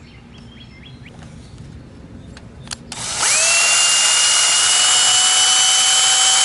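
Power drill with a small twist bit boring a starter hole through a composite plastic storage rail. After a few quiet seconds with light handling clicks, the drill spins up about three seconds in with a short rising whine, then runs at a steady high pitch.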